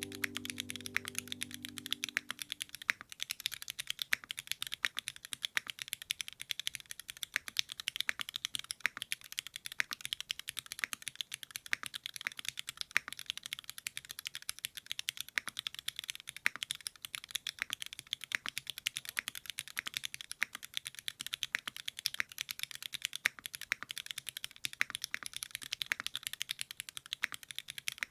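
Continuous typing on a Singakbd Rubrehaku custom mechanical keyboard, a dense run of keystroke clacks. Piano music fades out in the first two seconds.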